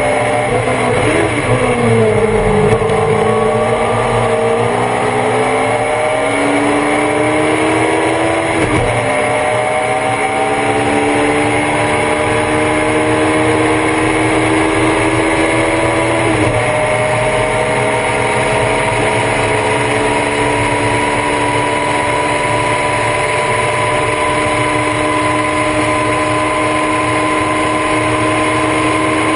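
Race car engine heard from inside the car. The pitch falls under braking at first, then the engine pulls hard with two upshifts, about nine and sixteen seconds in. After the second shift it holds a long, slowly rising pull.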